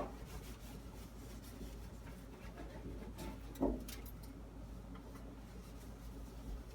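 Faint light clicks and knocks of a washcloth wiping out the inside of a microwave, with one short louder bump about three and a half seconds in.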